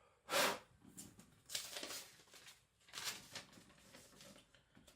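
A few short rustling, scraping handling noises, the first, about half a second in, the loudest.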